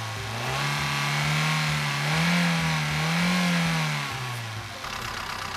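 Hyundai i10's 1.2-litre four-cylinder petrol engine revved by hand at the throttle cable with the bonnet open: it climbs from idle about half a second in, swells twice, and drops back to idle about four seconds in.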